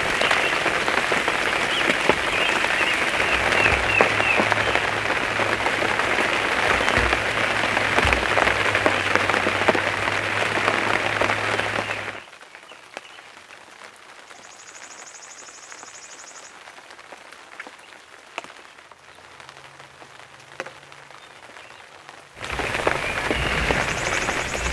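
Heavy rain falling steadily, a dense patter of drops. About halfway through it cuts off abruptly to a much quieter stretch with only a faint hiss and a brief high buzz, and loud noise returns near the end.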